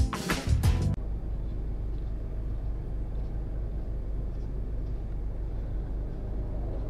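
A music jingle cuts off about a second in, giving way to a steady low rumble of street traffic.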